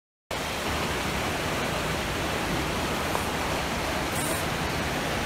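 Muddy floodwater rushing down a street: a steady, even rush of water that starts abruptly a moment in.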